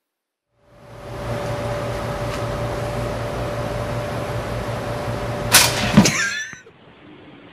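A pop-up toaster ejecting with a sharp metallic clack about five and a half seconds in, over a steady electrical hum. A second clatter and a brief jumbled noise follow half a second later.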